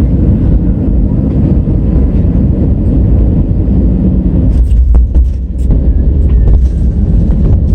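Loud, steady low rumble inside an Airbus A320's cabin during landing: the engines and the airframe. From about four and a half seconds in, several sharp rattles and clicks sound over the rumble.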